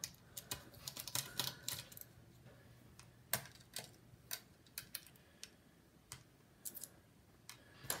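Light, irregular metallic clicks and ticks of a precision screwdriver working the small screws of a laptop's CPU heatsink, with the loosened screws and bracket being handled.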